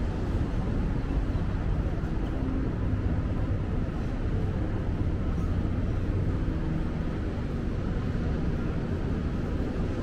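Steady outdoor ambience of a busy seaside pier and city: a continuous low wash of noise with faint indistinct voices in it.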